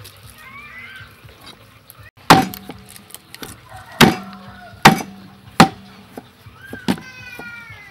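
Meat cleaver chopping through a raw duck carcass on a thick round wooden chopping block: four heavy chops, the last three less than a second apart, each with a short ringing thud. A cat meows near the end.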